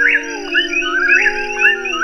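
Night chorus of a whip-poor-will and coqui frogs, a call repeating about once a second, layered over an ambient synthesizer pad whose held notes step to new pitches.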